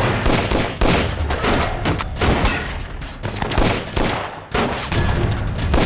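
Battle gunfire: many overlapping shots fired irregularly, a dense fusillade over a steady low rumble.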